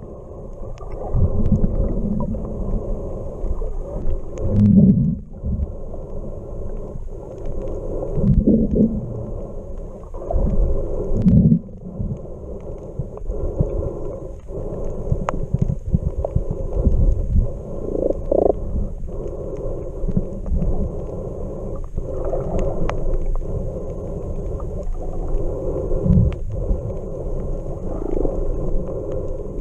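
Muffled underwater noise picked up by a camera held beneath the surface: a continuous low rumble of moving water with irregular louder swells every few seconds.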